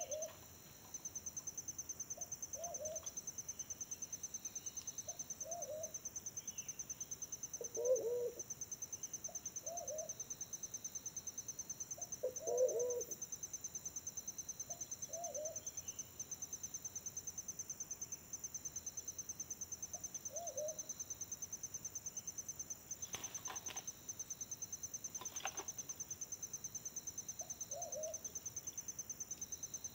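Wild pigeon (merpati hutan) giving short, low coos about every two to three seconds, two of them louder than the rest, over a steady high-pitched insect trill. Two faint clicks come near the end.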